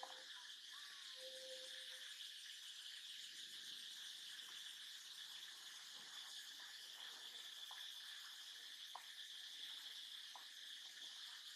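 Faint, steady high-pitched chorus of insects in dry woodland, an even shrill hiss with no rhythm.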